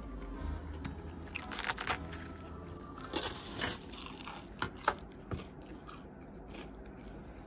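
Crispy deep-fried pork-belly tangsuyuk being bitten and chewed close to the microphone, irregular crunches thickest in the middle few seconds.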